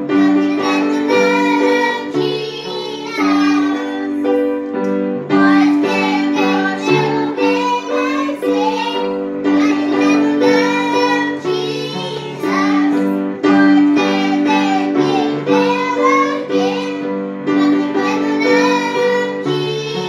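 A church song sung to grand piano accompaniment: a high singing voice with wavering, bending pitch over steadily repeated piano chords.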